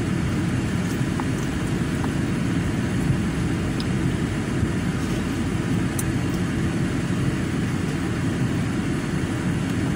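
Steady low rumble of a car running, heard inside the cabin, with a few faint clicks over it.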